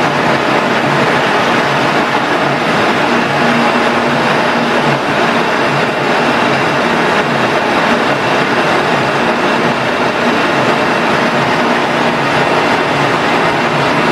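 MODUL ZFWZ 250x5 gear hobbing machine running: a loud, steady mechanical drone with a faint hum, from its motors and gear drives.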